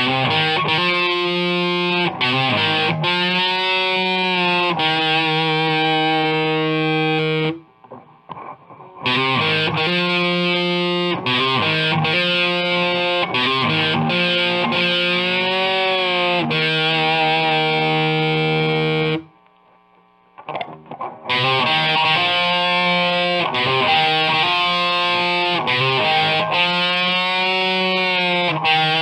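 Squier Classic Vibe Starcaster electric guitar through a Marshall Origin 20 head with heavy distortion, playing held chords and notes with string bends that waver in pitch. The playing stops briefly twice, about a quarter of the way in and again about two-thirds of the way in.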